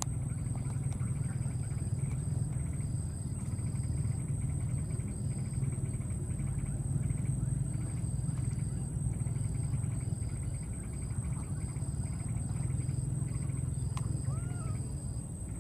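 Insects chirping: a steady high whine with rapid pulsed chirping trains that start and stop, over a loud, steady low rumble. A short rising-and-falling call comes in near the end.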